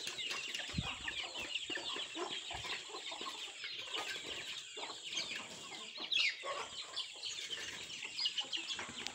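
A flock of young chickens peeping and clucking as they feed, many short high chirps overlapping without a break. One louder call sweeps downward about six seconds in.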